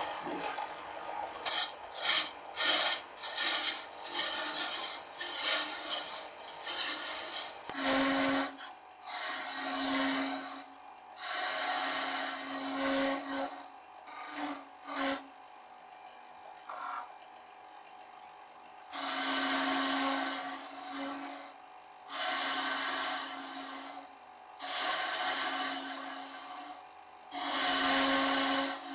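A turning tool cutting a spinning wooden spindle on a wood lathe, scraping and shaving in bursts: many short quick passes at first, then longer cuts of one to two seconds with pauses between. The lathe's motor hums steadily underneath.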